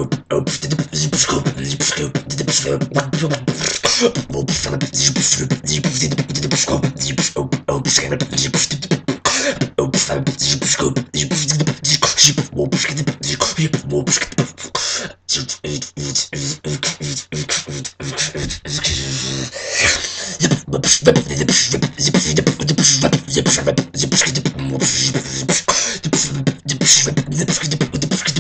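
A man beatboxing a fast tekno/jump-up style beat: rapid mouth clicks and snare hits over a steady low bass tone. The beat drops out for a moment about fifteen seconds in.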